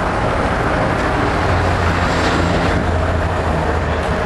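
Semi truck's diesel engine idling steadily, with a low hum that grows stronger about a second and a half in.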